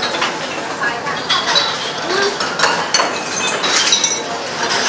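Ladles and utensils clinking against metal pots and ceramic bowls at a busy noodle-stall cooking station, many sharp clinks over a steady kitchen clatter.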